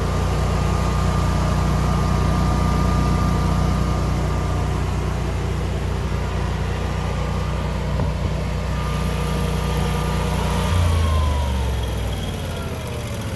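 Generac 22kW home standby generator running steadily, a low engine hum with a thin whine above it. About eleven seconds in it is shut off and winds down, the whine falling in pitch as the engine coasts to a stop.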